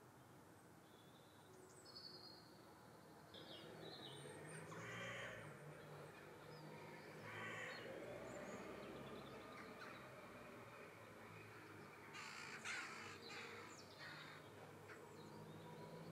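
Faint, scattered wild bird calls: a few short high whistles, then harsh, rasping calls several times, loudest in a cluster about three-quarters of the way through.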